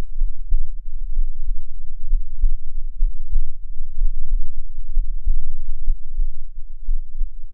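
Human heartbeat picked up through a binaural microphone: dull low thuds about once a second at a steady pace, over a constant low rumble.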